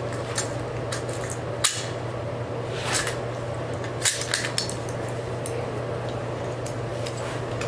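A few sharp metallic clicks and clinks over a steady low hum. The sharpest comes about a second and a half in, a softer cluster follows near three seconds, and another sharp click comes about four seconds in.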